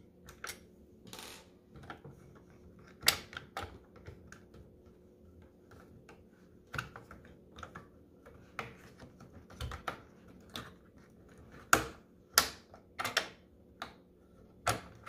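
Screwdriver turning a screw out of the plastic back housing of a Sony Bluetooth soundbar: irregular small clicks and taps, with a few sharper clicks about three seconds in and again toward the end.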